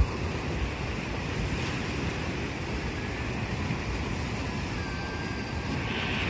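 Heavy storm surf churning and breaking against a rocky shore, driven by cyclone winds, with wind rumbling on the microphone.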